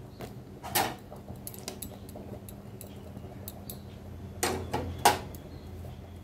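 Metal clinks of kitchen utensils against a steel kadai: one sharp clink about a second in, then three more close together near the end, over a low steady hum.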